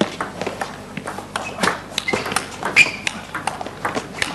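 Table tennis rally: the ball clicking off the bats and the table in a quick, even back-and-forth, about three or four hits a second, with a few short squeaks mixed in.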